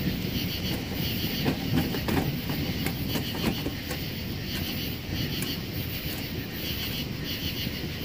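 Wood fire burning in a Pomoly Timber titanium tent stove, a steady low rumble with crackling. A cluster of sharp clicks and knocks comes a couple of seconds in, as the stove door is worked open.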